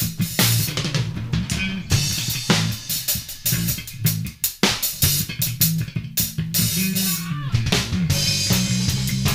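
Drum kit and bass guitar playing an improvised funk-style groove: busy kick, snare and rimshot strokes over moving bass notes.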